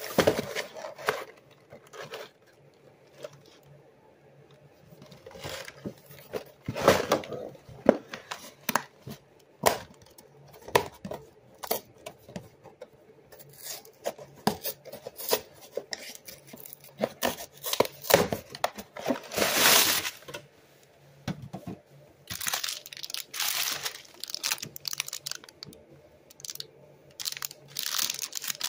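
Cardboard snack box torn open by hand: intermittent rips of the glued flap and knocks of the box, in short separate bursts. Near the end a plastic snack pouch crinkles in the fingers.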